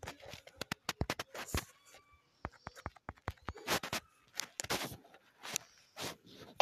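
Fingers tapping and handling a smartphone: a run of irregular, sharp clicks and knocks, some in quick succession.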